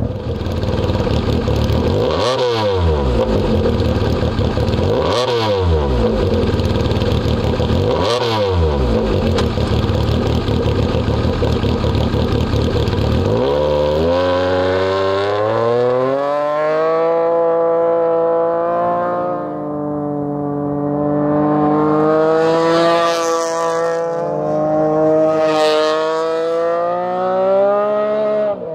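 Arctic Cat Wildcat XX side-by-side's three-cylinder engine through an XDR Competition single stainless exhaust with a round race muffler: running loud with three short revs in the first half, then about halfway through it changes to a smoother note that rises and falls in pitch several times under throttle as the machine drives off.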